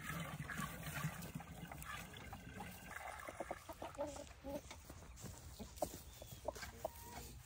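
Hens clucking around a plastic poultry waterer while water is poured into it from a bucket, the pouring in the first few seconds; short clucks come more often near the end.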